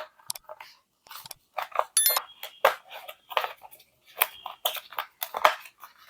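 A flexible polyethylene-and-nylon collapsible water bottle crinkling and crackling in the hands as it is folded up, in irregular bursts of short clicks with a brief high squeak about two seconds in.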